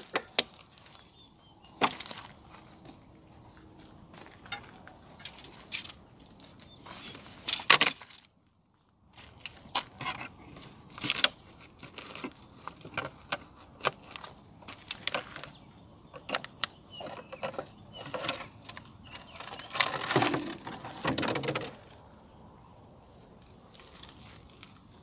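Irregular clicks, rattles and knocks of a clear plastic jar and a metal snake hook being handled on gravelly ground as a cobra is tipped out. The sounds are broken by about a second of silence just after eight seconds in.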